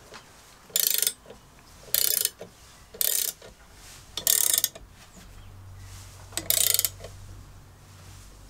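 A 17 mm ratcheting combination wrench clicking as it is swung back while tightening the nut on a metal shear's pivot bolt. There are five short bursts of fast clicks, about a second apart, with the last one after a longer pause.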